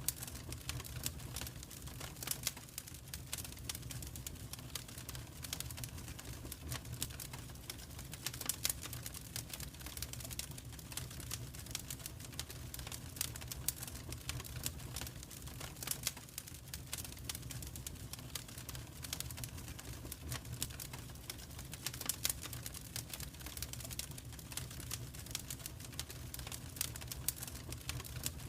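Wood fire crackling in a fireplace: irregular sharp snaps and pops over a low, steady rumble.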